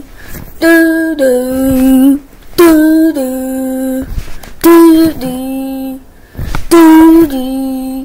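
A young person's voice singing a falling two-note phrase, a short higher note then a longer lower one, four times about two seconds apart, mimicking elevator sounds.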